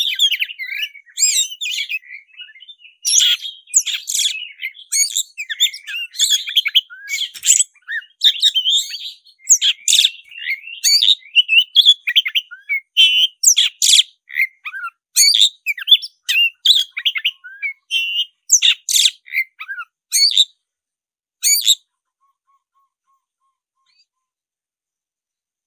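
Black-breasted oriental magpie-robin (kacer dada hitam) singing its full, energetic fighting song: a rapid, varied stream of short whistles, chirps and quick glides. It falls silent for the last few seconds.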